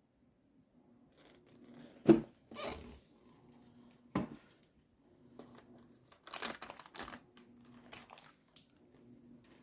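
Packaging being handled: a sharp knock about two seconds in, then bursts of crinkling and tearing.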